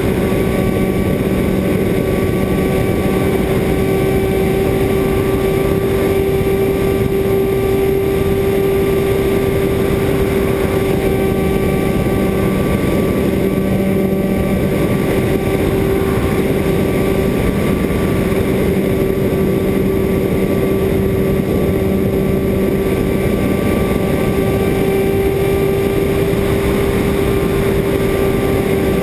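Great Planes Edge 540 RC model airplane's motor and propeller running steadily at an even pitch, heard from a camera mounted on the plane, with wind rushing over the microphone.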